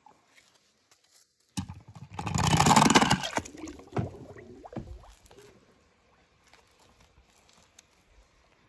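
A toy car splashes into a plastic tub of water, the water sloshing loudly for about a second, followed by a few light clicks and knocks of plastic toys being handled.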